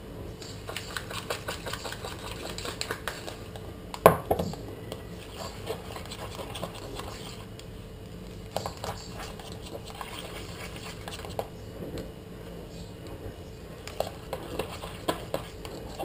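Metal spoon stirring a thick white cream in a small stainless-steel bowl, scraping and clicking against the metal. A sharp clink about four seconds in is the loudest sound, with scattered lighter clicks after it.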